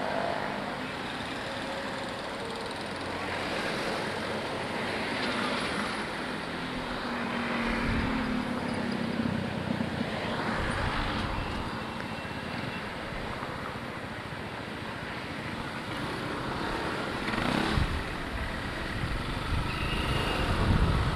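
Road traffic heard from a motorcycle in slow city traffic: cars passing close by in several swells over a steady bed of road and engine noise.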